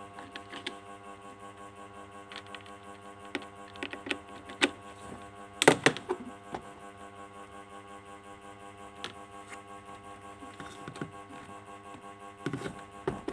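Light plastic clicks and knocks from a hand handling a 1:24 scale RC toy car and its remote, loudest in a cluster about six seconds in and again near the end, over a steady hum.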